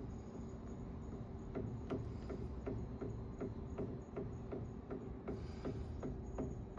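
Water heater piping pulsing with a regular knock, about three beats a second, over a steady hum. It is an abnormal noise that sets in after the heater has been running for a while.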